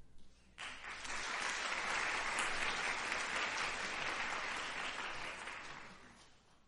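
Audience applauding at the end of a brass ensemble piece. The clapping breaks out suddenly about half a second in, holds steady, then fades away near the end.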